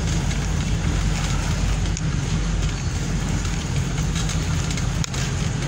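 Steady low rumble of a vehicle travelling along a city street, with wind noise on the microphone.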